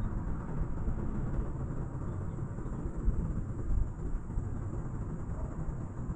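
Steady low rumble of a moving cable car gondola, heard from inside the cabin as it rides along the cable.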